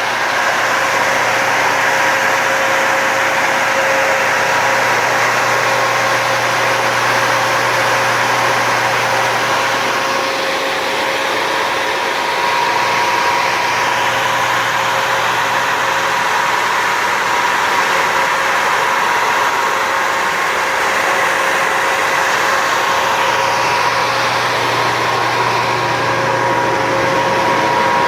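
2006 Detroit Diesel MTU 130 kW natural gas generator running steadily at its governed 1800 rpm during a functional test: loud, constant engine noise with a steady whine over it.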